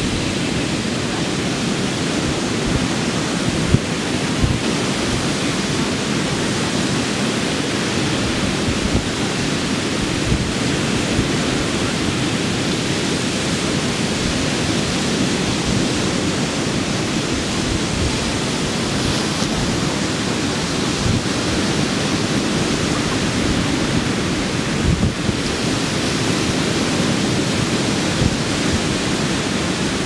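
Pacific Ocean surf breaking offshore and washing up the beach: a steady, even rushing wash. Wind on the microphone adds short low rumbles throughout.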